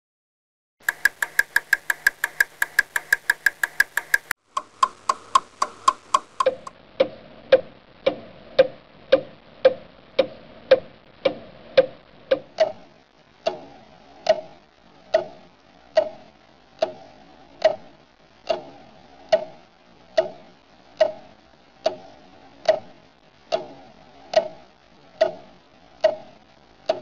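A clock ticking. It starts very fast and high, slows in steps over the first six seconds or so, and settles into a steady tick about twice a second, each tick lower in pitch.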